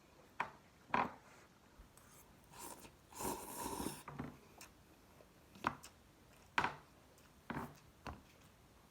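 A person eating ramen noodles: one slurp about a second long near the middle, and a handful of short, sharp clicks and smacks spread through the rest.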